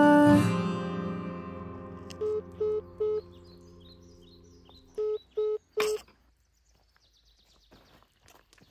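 The song's final chord rings out and fades, then short electronic telephone beeps sound in two groups of three. Faint birds chirp in the background.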